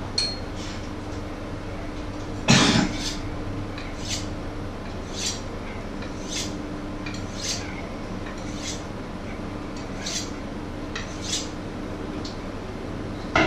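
Kitchen knife cutting pieces off a vegetable held in the hand over a bowl, a short crisp click about once a second. One loud knock, like a dish or utensil set down, comes about two and a half seconds in, over a faint steady hum.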